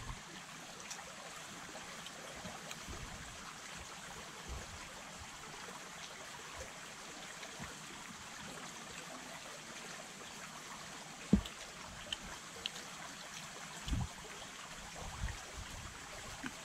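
A shallow creek trickling steadily, with one sharp knock about two-thirds of the way in and a softer thump a few seconds later.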